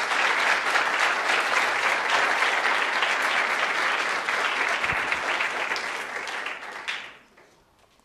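Audience applauding steadily, then dying away about seven seconds in.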